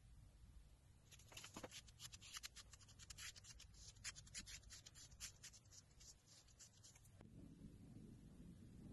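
Faint, quick scratchy rubbing, many short strokes over about six seconds, as a hand wipes a sheet across the surface of a wooden board; the scratching starts again just before the end.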